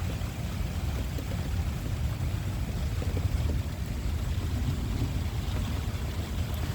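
Strong storm wind buffeting the microphone in a steady, uneven low rumble, with a faint hiss of rain beneath it.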